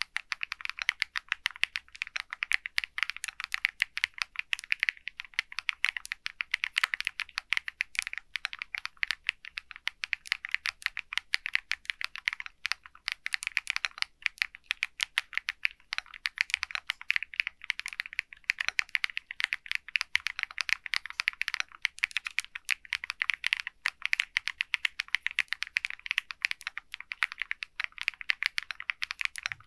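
Continuous fast typing on an SPM AL66A full-aluminium 66-key mechanical keyboard: a dense, even stream of crisp keystroke clicks.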